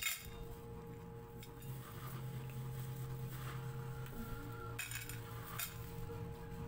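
Stainless steel cat bowls clinking as dry kibble is dropped in and cats eat from them: one sharp clink at the start and two more about five seconds in, over a faint steady hum.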